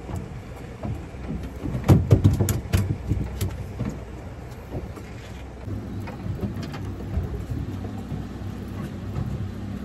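A quick cluster of knocks and rattles, like gear being handled on a fishing boat, then a low steady motor hum that sets in about halfway through.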